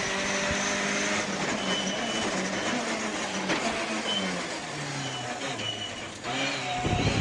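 Ford Escort MkII rally car's engine heard from inside the cabin. It holds a steady high-revving note, then falls in pitch as the car slows for a tight right-hand corner, dips briefly, and comes back loud under hard acceleration near the end.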